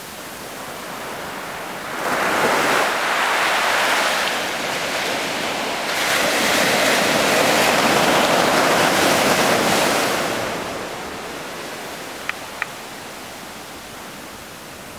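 Ocean surf breaking on a sandy beach and washing up the shore, swelling loud twice, about two seconds in and again from about six to ten seconds, then easing to a softer wash. Two brief high blips near the end.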